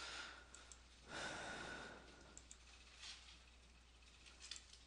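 Near silence: two soft breaths close to the microphone, the second about a second in, then a few faint clicks, over a low steady hum.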